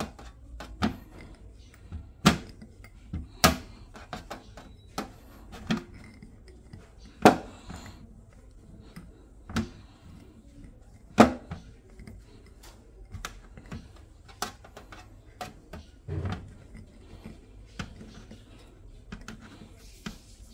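Irregular knocks and clacks, about one a second with a few louder ones, as a plastic cup is pressed and worked into bread slices on a metal baking tray, its rim and the hands bumping the tray.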